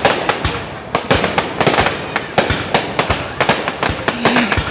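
Fireworks display: aerial shells bursting in rapid, irregular bangs, several a second, with crackling between them.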